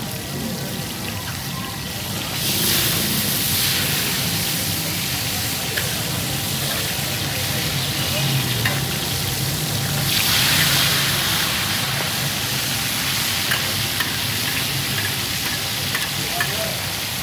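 Fish fillets sizzling in shallow oil on a large flat iron griddle, a steady hiss that swells louder about two and a half seconds in and again around ten seconds in. A metal spatula scrapes and taps against the griddle now and then as pieces are turned.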